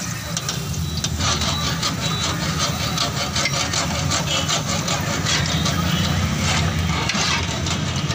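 Bhatura deep-frying in a kadhai of hot oil, the oil sizzling and crackling, denser from about a second in as the dough is pressed under the slotted spoon and puffs up. Under it runs a steady low rumble.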